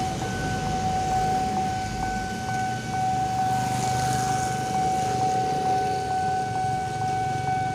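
Railroad crossing warning alarm sounding one steady, unbroken tone, the signal that a train is approaching, over the low running of passing cars and motorcycles.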